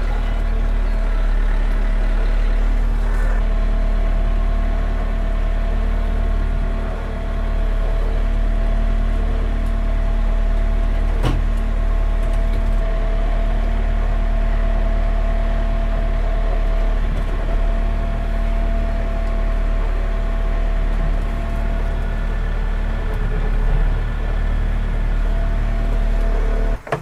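Kioti RX7320 tractor's diesel engine running steadily while the tractor reverses and hitches up, with one sharp click about eleven seconds in. The engine is shut off and cuts out suddenly near the end.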